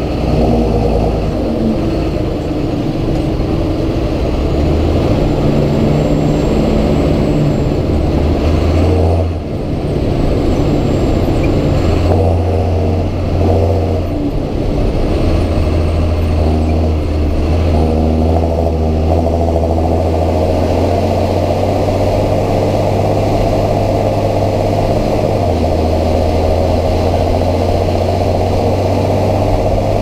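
John Deere 7530 Premium tractor's six-cylinder diesel engine running hard under load, hauling a 3000-gallon slurry tanker on the road, with a serious note. Its note shifts in pitch several times, and the sound dips briefly about nine seconds in before it pulls on steadily.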